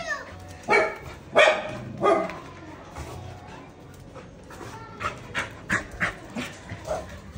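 Puppy barking three times in quick succession, then a run of fainter short sounds.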